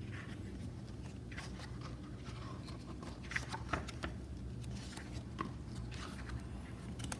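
Paperback book being handled and its pages opened, a few faint paper rustles and taps over a low steady room hum.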